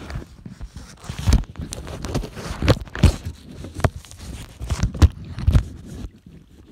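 Irregular knocks, thumps and rustling of handling close to the microphone, as the phone and paddle are moved about on a plastic sit-on-top kayak.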